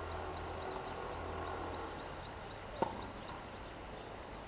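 A single sharp pop of a tennis ball striking the hard court or a racket, a little under three seconds in. Under it a high chirp repeats about three times a second, and a low hum fades out about two seconds in.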